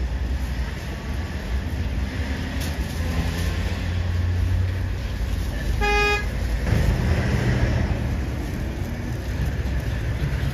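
Outdoor market ambience: a steady low rumble with the murmur of a crowd, and one short horn toot about six seconds in.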